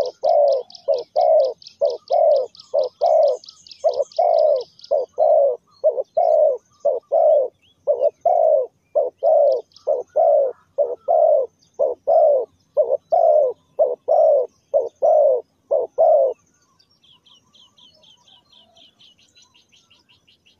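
Spotted dove cooing: a long run of low coos, about two a second, that stops about three-quarters of the way through. A small bird twitters in a high, rapid trill over the first few seconds and again faintly near the end.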